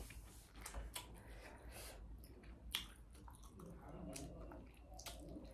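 A person chewing and biting broiler chicken, with soft wet clicks and smacks of the mouth scattered throughout.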